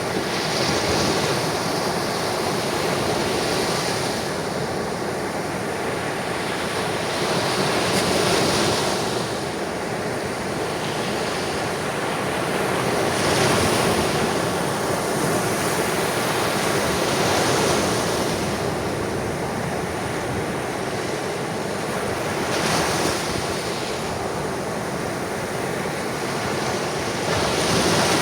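Ocean waves breaking and washing onto the shore, a continuous rush of surf that swells and eases every four to five seconds.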